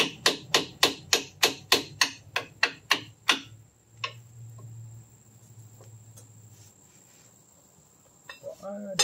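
Rapid, evenly spaced hammer blows on the metal of a truck's front hub and brake assembly, about three a second, stopping about three and a half seconds in.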